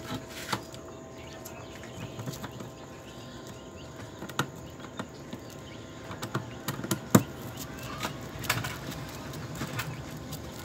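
Hands fastening a screw with a screwdriver inside a foil-lined wooden incubator box: scattered small clicks, taps and rustles, with one sharper knock about seven seconds in.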